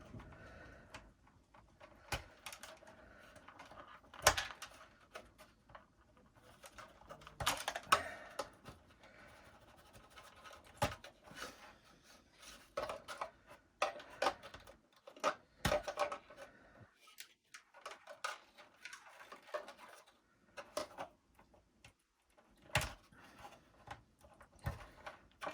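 Irregular clicks and knocks of the plastic parts of a Miele vacuum cleaner being handled and prised apart during disassembly, with the sharpest knocks about four and eight seconds in.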